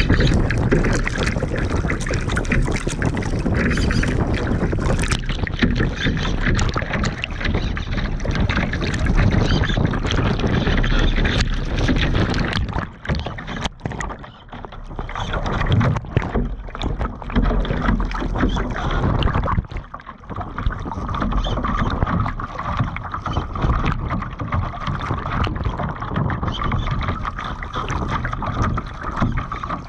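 Water rushing and splashing along the hull and over the deck of an RC Laser model sailing yacht heeled hard, with wind buffeting the microphone. The rush drops away briefly twice around the middle.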